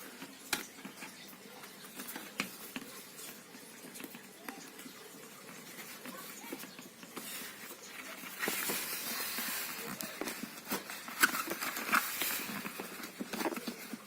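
Handling noises of motocross goggles being fitted to a helmet: scattered clicks and knocks, with a longer stretch of rubbing from a little past halfway as the goggles' stiff rubber strap is stretched over the helmet.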